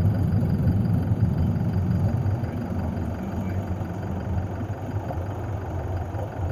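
Car engine idling with a steady low rumble that slowly fades a little.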